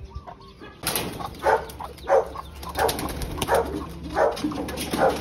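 A dog barking repeatedly, about one bark every 0.7 seconds, starting about a second in.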